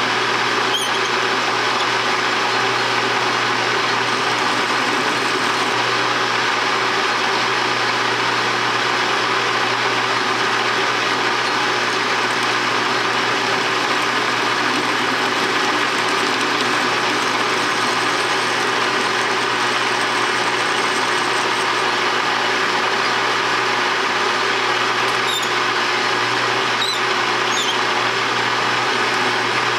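Metal lathe running steadily with its chuck turning, as the cutting tool is hand-fed across the end of the workpiece for a facing cut. A few faint high chirps come about a second in and again near the end.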